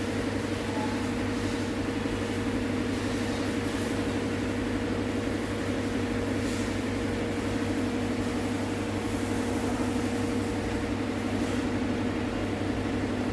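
Steady mechanical hum at an even level, with a constant low drone and a thin, steady higher tone and no change in pitch.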